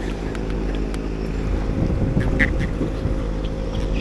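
A small boat engine running steadily, giving an even low hum, with a few light clicks from the hook and line as a small fish is handled.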